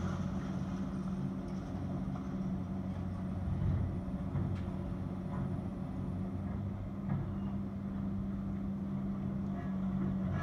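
Diesel engines of demolition excavators running steadily, a low hum, muffled by the window glass, with an occasional faint knock.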